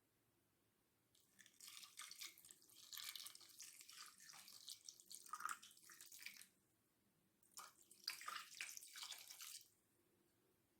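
Water or tea being poured or running, in two spells: about five seconds, a pause of about a second, then about two seconds more.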